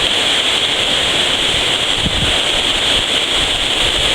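Wilge River waterfall: a loud, steady rush of falling water.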